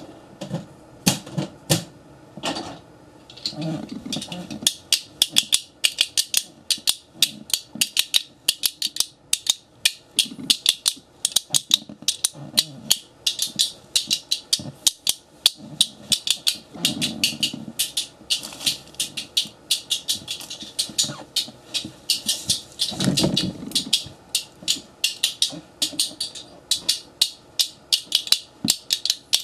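A fast, uneven run of sharp clicks, about three a second, with a low sound rising twice beneath them.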